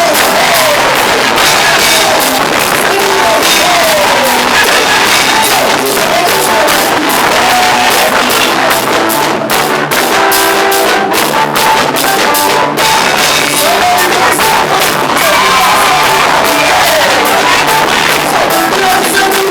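Loud band music with a steady drum beat and voices singing, typical of praise music at a church service.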